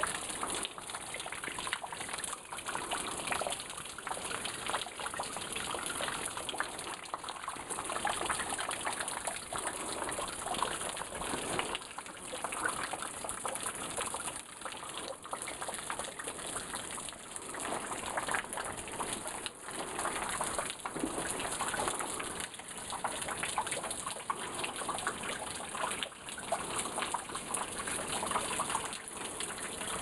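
Running water splashing steadily over rock, a continuous gushing hiss with no pauses.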